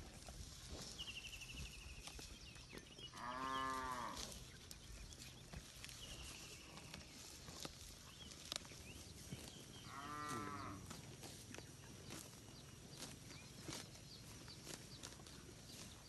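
Cattle mooing twice, each moo about a second long and some seven seconds apart, over a faint outdoor background.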